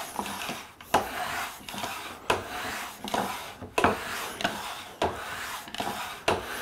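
Core box plane cutting a half-round groove in a wooden block with short back-and-forth strokes, shaving wood on each pass. The strokes come about one every two-thirds of a second, each starting with a sharp tick.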